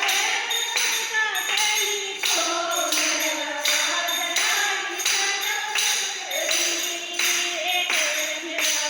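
Voices singing a Hindi devotional bhajan to a steady beat of tambourine jingles, struck about twice a second.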